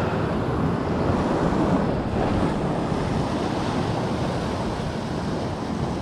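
Atlantic surf washing onto the shore, with wind buffeting the microphone: a steady rush of noise with no distinct events.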